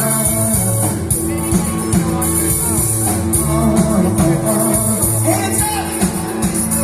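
Live rock band playing at full volume with a steady drum beat, and a voice shouting "hands up" near the end.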